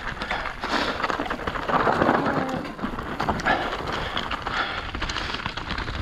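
Mountain bike rolling fast down a forest trail: knobby tyres crunching over dry leaf litter and loose stones, with a dense run of small clicks and rattles from the bike over the bumps.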